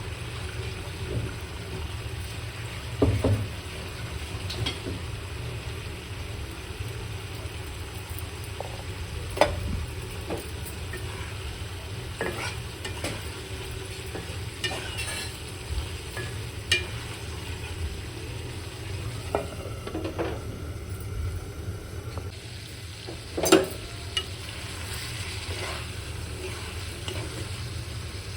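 Egg vuna (spiced egg curry) frying and being stirred in a pan, with a faint sizzle. A spatula scrapes and knocks against the pan every few seconds, the sharpest knock near the end. A steady low hum runs underneath.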